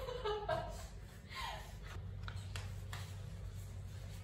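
A woman's brief chuckle at the start, then a few faint knocks over a low steady hum that comes in about halfway through.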